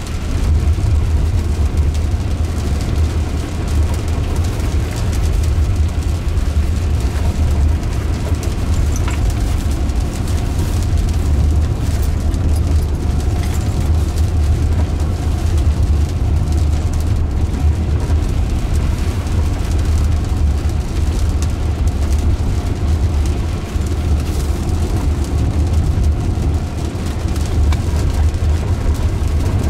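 Steady road and tyre noise heard inside the cabin of a Jaguar I-Pace electric car driving on a wet road, dominated by a low rumble.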